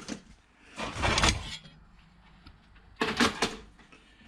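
Cordless drill-driver with a Torx bit running in two short bursts, one about a second in and one about three seconds in, backing screws out of a PC case.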